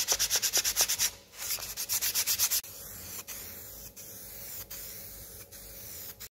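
Hand sanding with a sanding pad in quick back-and-forth strokes, pausing briefly about a second in. About two and a half seconds in, an aerosol spray-paint can starts hissing steadily, with a few short breaks between passes.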